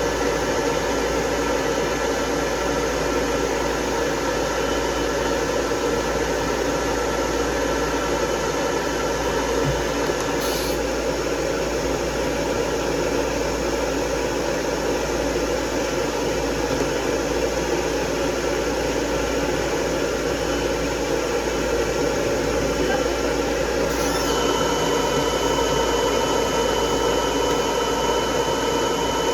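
Pet blow dryer running steadily while a dog is dried, a loud airy rush with a faint whine in it; the pitch of the whine shifts slightly about twenty-four seconds in.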